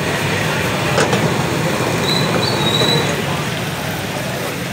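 Stir-frying on a gas ring: the burner runs with a steady roar under the wok while noodles sizzle, and a metal spatula scrapes and knocks against the wok as they are tossed, with a sharp knock about a second in and a brief thin metallic squeal around two seconds in.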